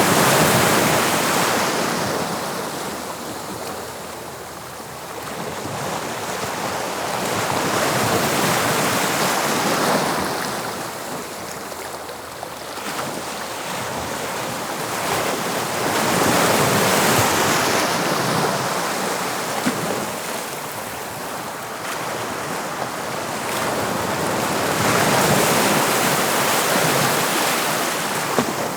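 English Channel waves breaking and washing onto the shore, the surf swelling and falling back about every eight seconds.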